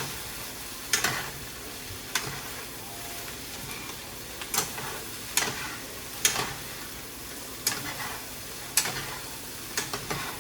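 Chicken and vegetables sizzling in a hot pot while two spoons stir and toss them, the spoons knocking and scraping against the pot about once a second over a steady frying hiss.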